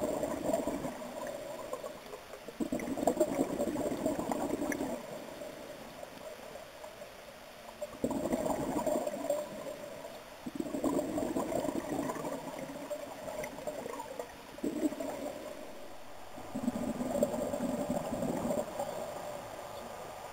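Scuba diver breathing through a regulator underwater: about half a dozen rushes of breath and exhaled bubbles gurgling, each about two seconds long, with short pauses between them.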